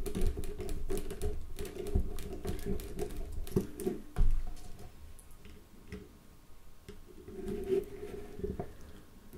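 Quick small clicks, scrapes and taps of a Nokia 3310's metal chassis and plastic parts being handled and fitted back together, quickest in the first half and sparser later, over a faint steady hum.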